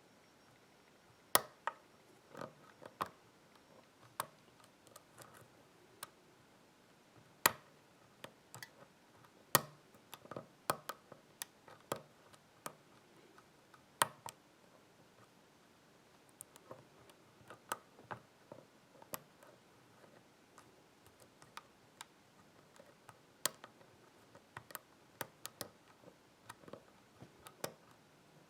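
Lock pick and tension wrench working the pins of a five-pin pin-tumbler mortise cylinder fitted with spool and serrated security pins: scattered, irregular metallic clicks and ticks, a few of them sharp and loud, as pins are lifted and set. The lock opens just after.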